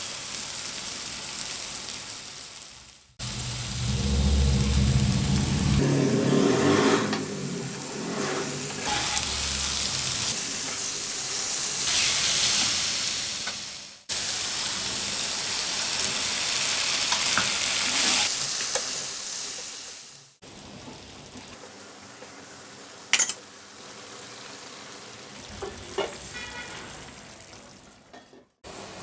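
Omelette egg sizzling and frying in a pan, in several takes that cut off abruptly, the sizzle swelling and fading within each. A single sharp click partway through the quieter last stretch.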